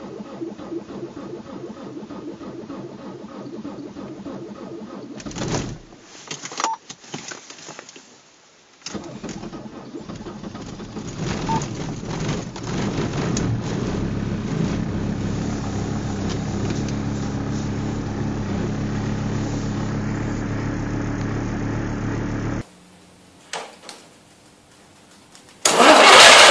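A cold engine running, faltering and dropping away about six to eight seconds in, then picking up again and settling into a steady run. It stops abruptly near the end, and a much louder noise starts up.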